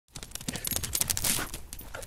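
A fast run of clicks and rustling that swells about a second in and fades near the end, part of a logo intro sound effect.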